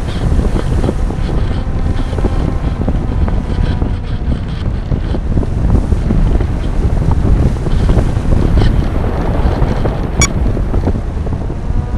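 Airflow buffeting the microphone of a camera mounted on an RC model glider in flight. It makes a steady, rumbling rush, with a faint whine that wavers in pitch underneath and a single sharp click about ten seconds in.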